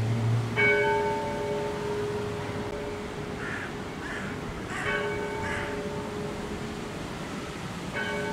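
A single church bell tolled slowly, struck three times about four seconds apart, each stroke ringing on; a mourning toll for a death. Between the strokes a crow caws a few times.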